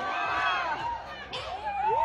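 Audience of fans squealing and shrieking, several high voices overlapping with rising and falling pitch.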